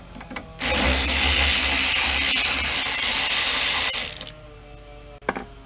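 Socket ratchet clicking rapidly for about three seconds as it backs out a 3/8-inch bolt, starting about half a second in and stopping about four seconds in.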